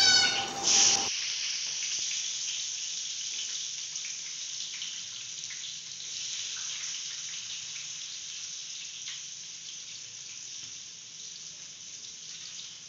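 Chopped onions sizzling in hot oil in a metal kadai. The sizzle starts suddenly as they go in about a second in, then settles into a steady hiss with scattered crackles that slowly dies down.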